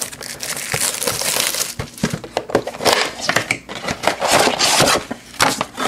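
Crinkling and crackling of packaging as a retail trading-card box is opened and its foil card packs are handled, with many short sharp crackles.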